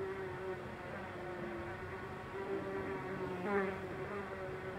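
Housefly buzzing as it flies around a room, a steady drone that wavers in pitch as it moves. About three and a half seconds in it passes close, briefly louder and rising in pitch.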